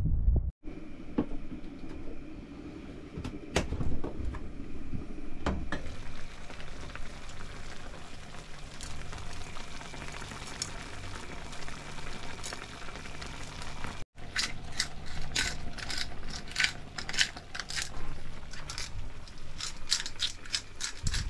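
A pan of meat, potatoes and onion simmering on a gas hob, with a few sharp knocks of pan and lid handling early on. In the last seven seconds a pepper mill grinds in a string of short strokes, about two or three a second.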